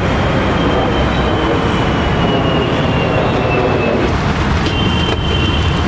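Steady, loud road traffic noise, with a faint high whine near 3 kHz that slides slightly down, then two short high tones about five seconds in.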